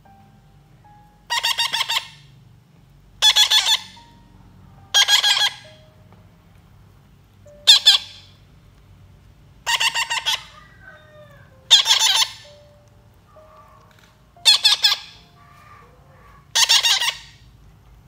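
Baby parrots giving harsh, rapidly pulsed begging squawks as they are hand-fed papaya: about eight bursts of roughly half a second each, a couple of seconds apart, with faint short whistles between.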